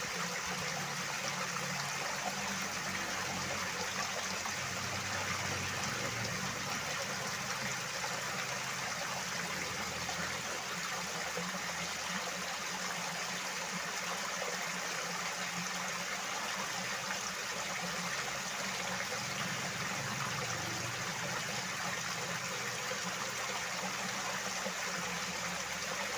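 Water flowing steadily, a continuous even rush without breaks.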